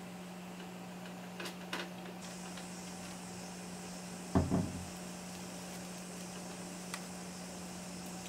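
Quiet handling noises as a wig is pulled on over a wig cap: a few faint clicks and one short thump about four and a half seconds in, over a steady low hum.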